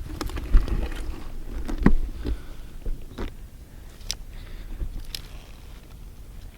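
Close crunching and scraping of a person stepping over dry ground and brush, in irregular clicks, loudest about half a second and two seconds in, over a low rumble on the microphone.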